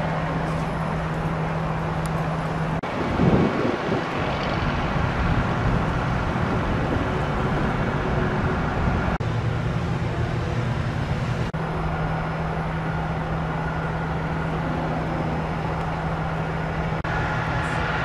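Heavy vehicle engine running steadily: a low hum over a broad rumble, with a brief louder swell about three seconds in.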